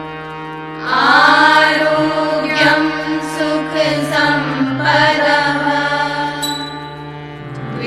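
Indian devotional singing: a voice sings a slow, gliding melody over a steady sustained drone, the voice coming in about a second in.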